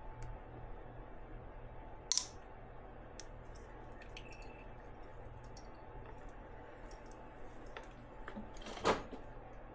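Faint scattered clicks and small handling noises over a steady low hum, with two brief sharper sounds, one about two seconds in and a louder one near the end.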